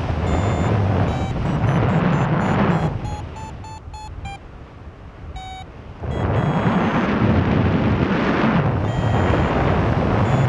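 Wind buffeting the microphone in flight, over the short electronic beeps of a paragliding variometer signalling lift. The wind eases for a few seconds near the middle, where a quick run of same-pitched beeps, about five a second, stands out.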